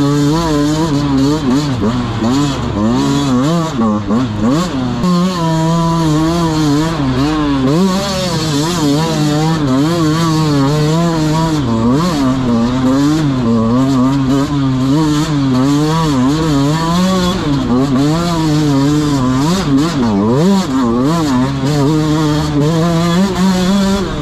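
Dirt bike engine running under constant throttle changes as it is ridden, its pitch rising and falling every second or so.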